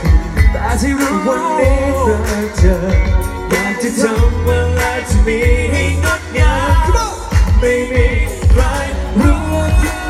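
Live pop song played loud over a concert sound system: singing over a band with a heavy bass beat and regular drum hits.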